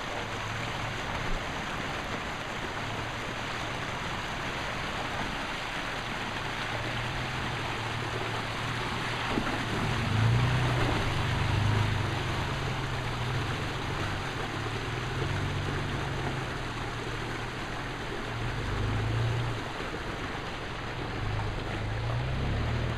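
Toyota FJ Cruiser's 4.0 L V6 running at low speed as the truck crawls over rocks in a creek, over the steady rush of the creek water. The engine swells louder about ten seconds in and again near the end.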